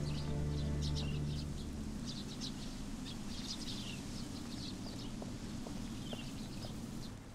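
Small birds chirping repeatedly, many short high chirps. Underneath, a held low music chord ends about two seconds in.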